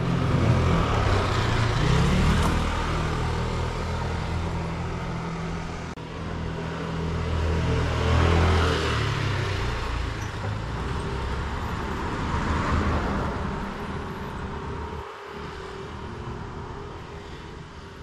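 Cars driving past on a street, the engine rumble and tyre noise of each swelling and fading as it goes by: one near the start, one about halfway through, one about two-thirds through. The traffic then dies down.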